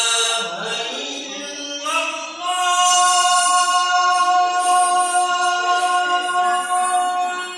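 A single voice chanting in long held notes. It slides up in pitch about two seconds in, then holds one note for about five seconds.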